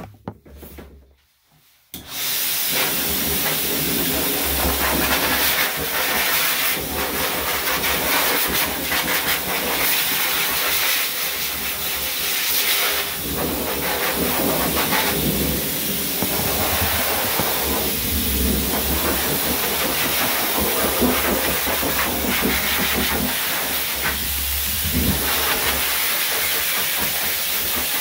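Hose-type pet force dryer switched on about two seconds in, blowing a loud, steady rush of air. The rush wavers slightly as the nozzle is moved over the dog's coat.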